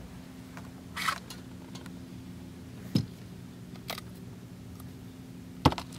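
A few short clicks and rustles of hands rigging cut fish bait onto a hook on a fishing rod, the last one the loudest, over a steady low hum.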